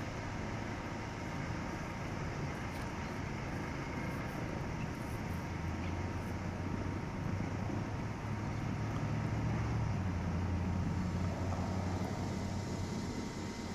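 Medical helicopter coming in to land a little way off: a steady low rotor and engine drone that swells in the middle and eases near the end, with a faint steady high whine over it.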